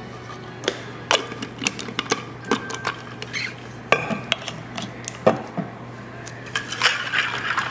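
Ice clinking in a stainless-steel water bottle and its plastic screw cap being fitted and turned: a scattered run of sharp clicks and knocks.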